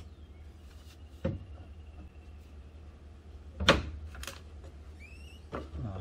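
HDO plywood rim pieces being knocked into place and tacked with a brad nailer stapler. A few scattered knocks, with the loudest two, sharp clacks about half a second apart, a little past the middle.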